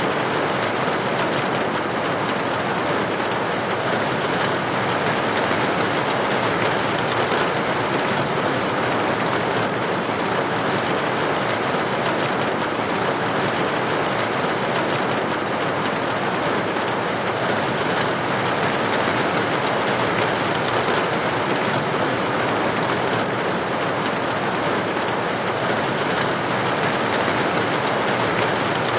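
Steady rain falling on a window: an even, unbroken hiss with faint scattered drop taps.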